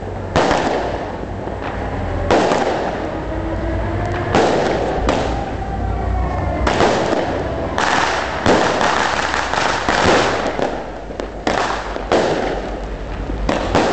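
A consumer firework cake firing shot after shot, each a sudden bang that fades away. The shots come about every two seconds at first, then faster and overlapping in the second half.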